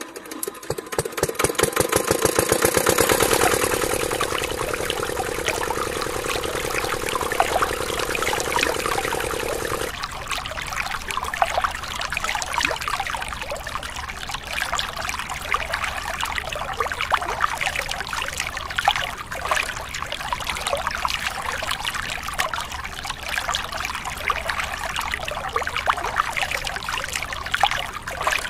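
The small motor of a toy model engine whirring fast with a rapid clicking rattle, getting louder over the first few seconds as it drives two miniature water pumps by rubber belts. About ten seconds in the whir stops abruptly and water pouring and trickling from the pumps' outlet hoses takes over, with a low hum beneath.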